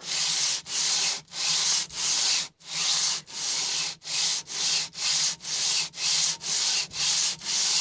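Cast-iron sole of a Footprint No. 5 hand plane rubbed back and forth on 120-grit abrasive laid flat, in even rasping strokes about one and a half a second, with light pressure. This is the sole being lapped flat.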